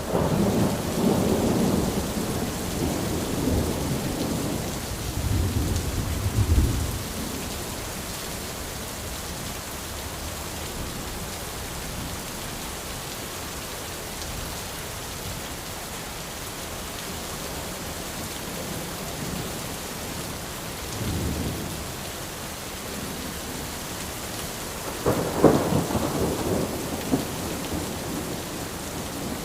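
Steady rain pattering on an umbrella, with rolls of thunder: a long rumble through the first several seconds, a short one about two-thirds of the way in, and another near the end.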